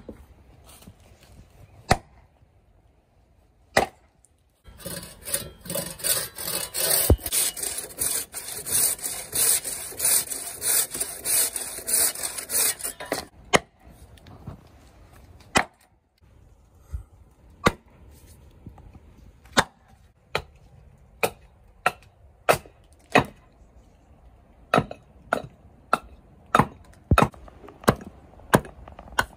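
Green wood being worked with hand tools: a few heavy knocks of a wooden maul driving a splitting blade into a log, then about eight seconds of rapid, scratchy saw-like strokes through the wood, then a run of sharp side-axe chops hewing the blank, coming faster toward the end.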